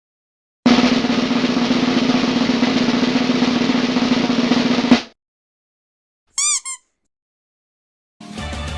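Snare drum roll lasting about four seconds and ending in a sudden final hit, a classic meme sound effect. A second and a half later come two short pitched blips, and music starts near the end.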